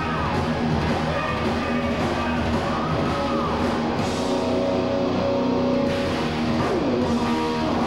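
Live heavy metal band playing: distorted electric guitars over a drum kit, with held notes that bend in pitch.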